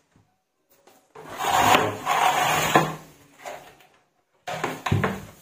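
Hard plastic tool-holder rack being handled against plastic pegboard panels: a long stretch of scraping and rubbing with two sharp knocks, then a shorter clatter near the end.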